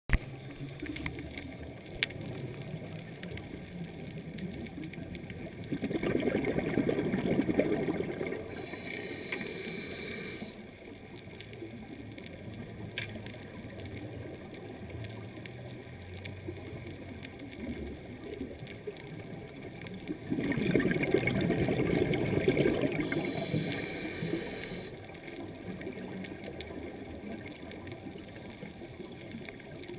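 Underwater ambience picked up by a camera in the water: a steady rushing hiss, with two louder stretches of low rushing noise about six and twenty seconds in, each ending in a short higher hiss.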